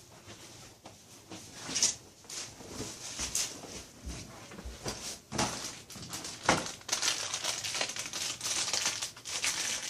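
Packaging being handled: irregular crinkling and rustling with a few sharp knocks, busier from about two seconds in.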